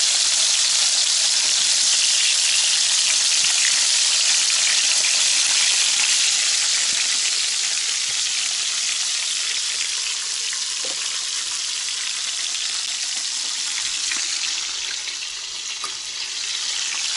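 Fish pieces frying in hot oil in a frying pan: a steady sizzle with fine crackles, easing somewhat after about seven seconds.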